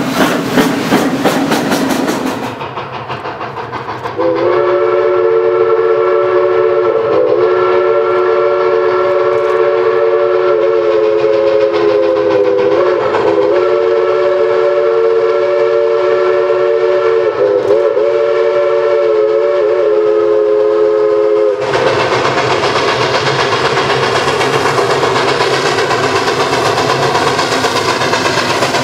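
Steam locomotive working hard, then a chime steam whistle sounding several steady notes together in one long blast, broken briefly three or four times. About 22 seconds in, the locomotive passes close, loud with its exhaust and wheels clacking over the rails.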